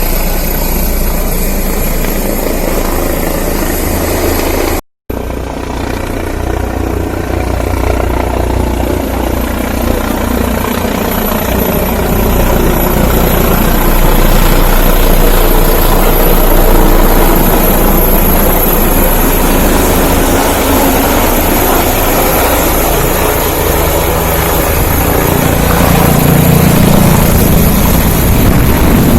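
Helicopter running steadily, its engine and rotor making a loud continuous rumble. The sound breaks off for a split second about five seconds in, then carries on.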